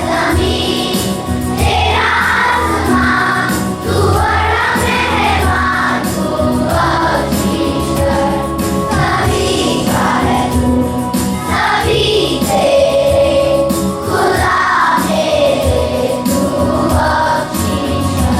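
A choir singing a morning prayer song over steady instrumental accompaniment.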